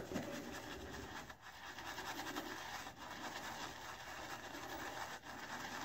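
Semogue Owners Club shaving brush, freshly slung out and damp, swirling and scrubbing against shaving soap in a bowl: a steady, soft scratchy brushing as the lather is started from a dry paste.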